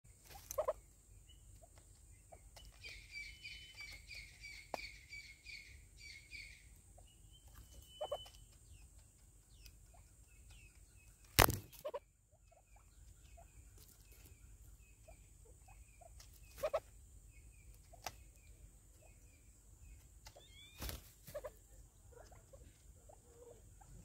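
Sharp knocks of a Natal spurfowl pecking at a plastic seed feeder, a few scattered through, the loudest about halfway. Behind them a bird sings a quick run of about nine evenly repeated high notes a few seconds in, then gives faint scattered chirps.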